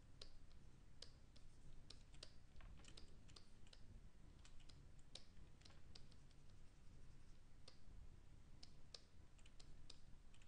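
Faint, irregular clicks from computer input devices, a few a second, over a low steady room hum.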